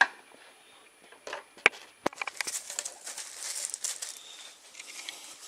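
Handling noise from plastic parts being handled: a few sharp clicks and knocks in the first two seconds, then about three seconds of rustling and scraping.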